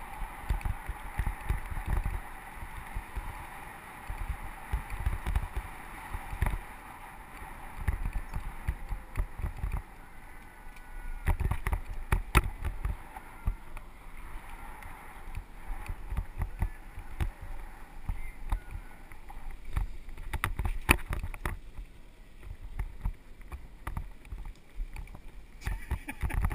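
Mountain bike rolling fast down a dirt trail: wind buffets the helmet camera's microphone in uneven gusts, the tyres hiss on loose dirt, and the frame rattles and knocks sharply over bumps many times.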